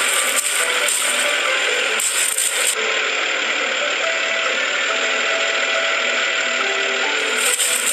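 Cartoon bulldozer sound effect: a continuous mechanical rattling and clattering as the bulldozer clears rubbish.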